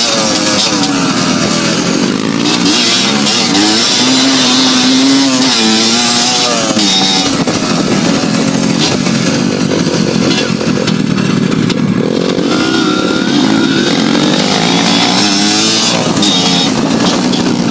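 Enduro motorcycle engine running under changing throttle, its pitch rising and falling again and again as the bike is ridden.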